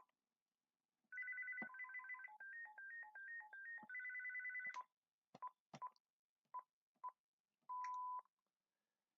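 GE cordless phone's electronic ringer playing a warbling ringtone melody of quickly alternating beeps for about four seconds. It is followed by a few short beeps and one longer steady beep near the end.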